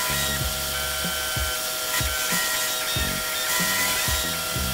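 Background music with a repeating bass line, over a milling machine's end mill cutting a small metal coupling.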